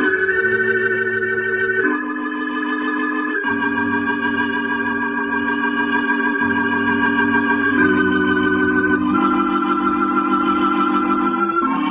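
Organ music playing slow, held chords that change every second or few, several times over.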